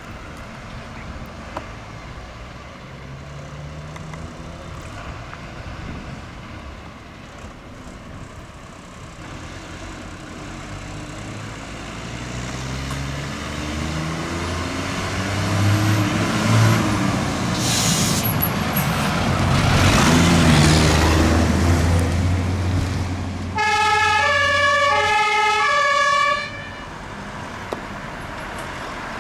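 A vehicle's engine climbs in pitch as it speeds up and grows steadily louder. Near the end, an emergency vehicle's German two-tone siren (Martinshorn) sounds for about three seconds, the loudest sound here, then cuts off suddenly.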